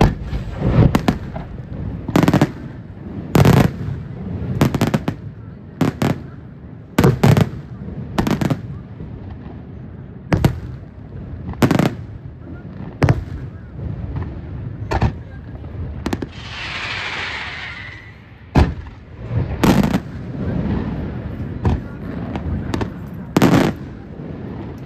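Aerial firework shells bursting overhead in a series of loud bangs, about one every second or so, some in quick pairs. About two-thirds of the way through, a couple of seconds of hissing from burning stars or effects.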